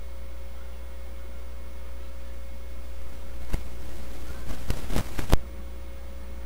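Steady low electrical hum, broken about three and a half seconds in by a short flurry of clicks and knocks lasting about two seconds, the loudest knock coming last.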